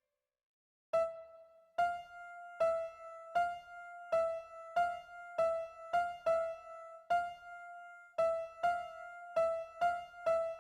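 About a second of silence, then a repeating electronic chime of single piano-like notes. The notes come one to two a second in an uneven rhythm, move back and forth between two close pitches, and each one rings and fades.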